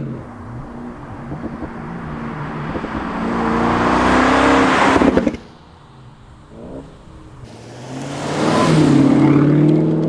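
Audi RS7's twin-turbo 4.0 V8 with an Akrapovič exhaust at full throttle, its note climbing in pitch and growing louder until it cuts off suddenly about five seconds in. After a quieter couple of seconds with the engine faint in the distance, it comes back loud as the car launches away.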